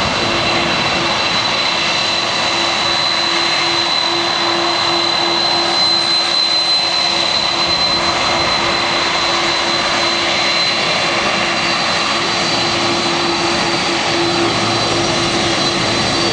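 Jet engines of a KLM Boeing 747 running at takeoff power: a loud, steady rush of jet blast with a high whine and a low hum held through it.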